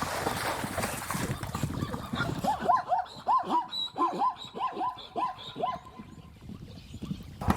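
Plains zebra calling: a run of about ten short yipping barks, each rising then falling in pitch, about three a second, from about two and a half seconds in until about six seconds. Before the barks comes a rough, noisy stretch.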